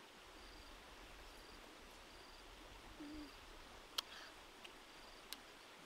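Near silence with a faint high chirp repeating roughly once a second, and a few sharp clicks of mouth sounds from chewing pineapple, the loudest about four seconds in and another near the end.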